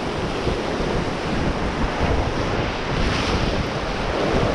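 Whitewater rapids rushing steadily around an inflatable raft, with wind buffeting the microphone.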